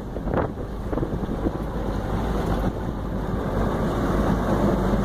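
Wind buffeting the microphone: a steady low rumble that swells slightly near the end.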